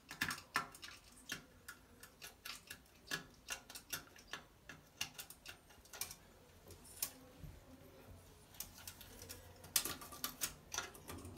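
Irregular light clicks and ticks of a metal claw grabber knocking and scraping in a porcelain toilet's drain opening as it works at an object lodged sideways in the drain. The clicks come faster for a moment near the end.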